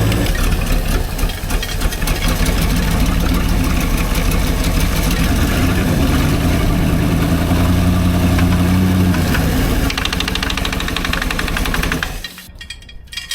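Freshly assembled engine running on its first start with a rapid, loud clacking throughout, which sounds like an internal knock. It revs up partway through, then shuts off abruptly near the end.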